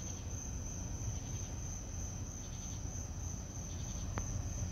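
Crickets chirping in a steady high trill, over a low steady rumble, with one faint click about four seconds in.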